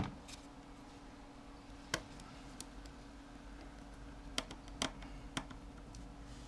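Light, scattered clicks and taps of small metal parts and a small screwdriver being handled while the vibrating motor is fitted into an opened iPhone 4's frame: a sharp click at the start, another about two seconds in, and three more near the end, over a faint steady hum.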